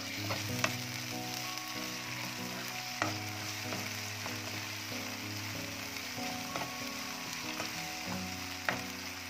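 Ginger-garlic paste and fried onions sizzling in hot oil in a stone-finish nonstick wok while a spatula stirs them. The spatula knocks sharply against the pan a few times, most clearly about three seconds in and near the end.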